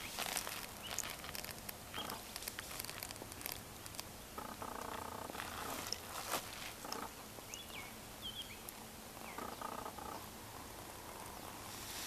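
A low purring trill about a second long sounds twice, some five seconds apart, over scattered rustling clicks and a few short high chirps.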